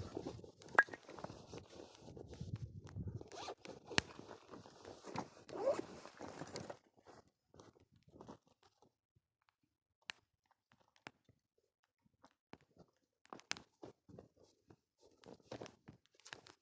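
A zipper being pulled, with scraping and rustling for about the first seven seconds, then scattered small clicks and crackles.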